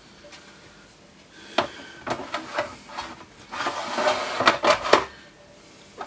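Black top cover of a digital video recorder being set down over the open chassis and worked into place: a few scattered clicks, then a second or so of scraping and knocking about three and a half seconds in, ending with a sharp knock.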